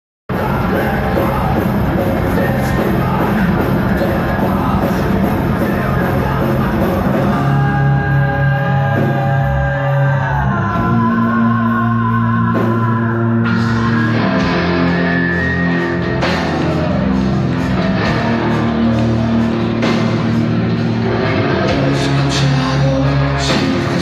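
Metal band playing live, with distorted electric guitars, drums and vocals. About eight seconds in the drums drop out and held guitar notes ring on, one of them bending in pitch. The full band crashes back in at about thirteen seconds.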